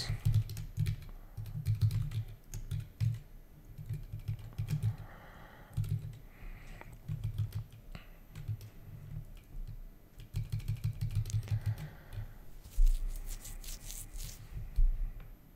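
Typing on a computer keyboard: irregular bursts of keystrokes with short pauses between them, as code is written in a text editor.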